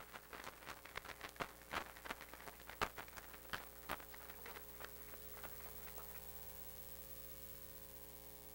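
Audience applause dying away into a few scattered claps that stop about five seconds in, leaving a faint steady hum.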